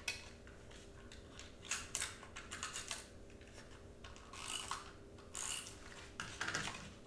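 Soft, scattered clicks and scrapes as a glue tape runner is rolled over cardstock and the paper pieces are handled and pressed down, over a faint steady hum.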